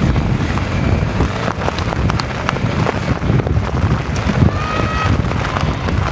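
Strong wind buffeting the microphone, with rain pattering and a Honda CRF250L single-cylinder off-road motorcycle running on the course. The rumble is heavy and uneven, with many small clicks of raindrops.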